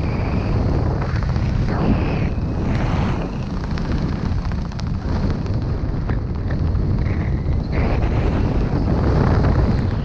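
Wind rushing over a skydiver's camera microphone under a parachute canopy in high, gusty winds: a loud, low, rumbling rush that eases a little in the middle and swells again near the end.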